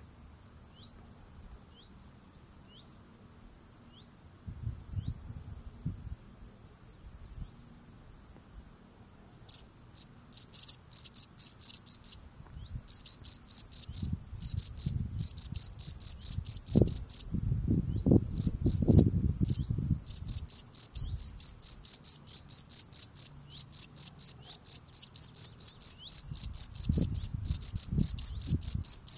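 European field cricket (Gryllus campestris) stridulating, rubbing its raised forewings together. It is faint at first, then from about nine seconds in comes a loud, even series of short high chirps, about four a second, broken by a few brief pauses. Low rustles are heard here and there.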